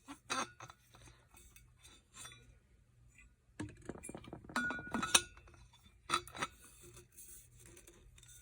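Light clinks and knocks from handling a stainless steel water bottle, with a cluster of taps and a short metallic ring about four to five seconds in.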